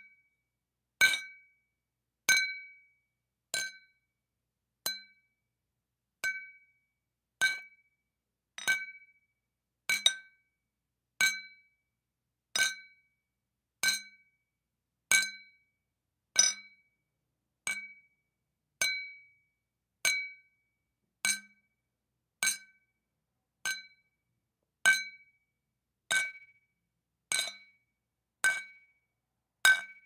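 Two glass bottles tapped against each other in a steady series of single clinks, about one every 1.2 seconds. Each clink is a sharp strike with a short bright ring at the same pitch every time, fading within a fraction of a second.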